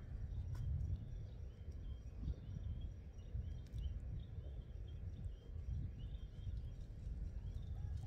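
Outdoor ambience: a fluctuating low rumble of wind on the microphone, with many faint, quick bird chirps repeating in the background. Near the end a drawn-out animal call begins.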